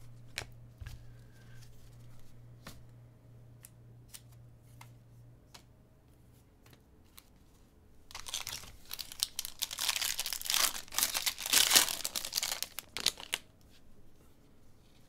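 Light scattered clicks of trading cards being handled. About eight seconds in, a baseball card pack's wrapper is torn open and crinkled for about five seconds; this is the loudest sound.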